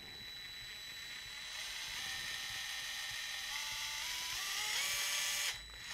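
Craftsman CMCF604 4-volt gyroscopic cordless screwdriver running free, its small motor and gearbox whirring. The speed climbs in several distinct steps as the wrist is twisted further, then cuts out briefly near the end.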